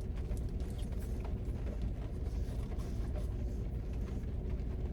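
Steady low rumble inside a parked car, with faint scattered ticks of rain on the car during a thunderstorm.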